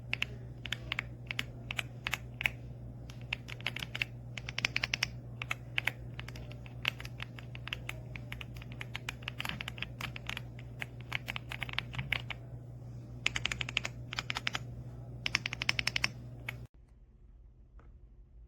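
Typing on an EPOMAKER x Aula F75 gasket-mount mechanical keyboard: rapid flurries of key clicks with short pauses between them, over a steady low hum. The typing stops abruptly near the end.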